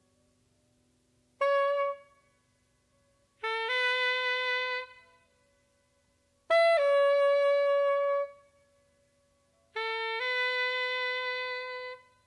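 A solo jazz horn plays four long, held notes spaced apart by silences. Each note slides briefly into its pitch from just below or above it, and the third note is the loudest.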